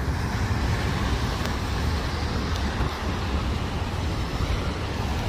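Steady road traffic noise: cars running along a rain-wet road, tyre hiss over low engine rumble.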